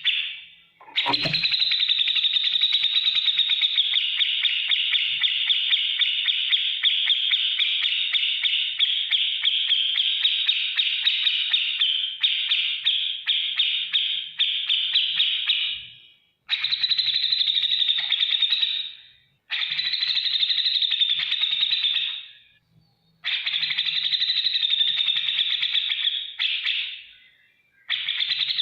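Grey-cheeked bulbul (cucak jenggot) giving a fast, ticking chatter of sharp repeated notes. It starts about a second in and runs for some fifteen seconds without a break, then comes in shorter runs of two to three seconds with brief pauses between them.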